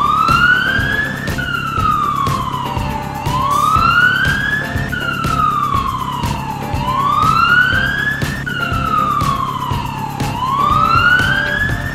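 Siren wailing up and down, each rise and fall taking about three and a half seconds, over background music with a steady beat.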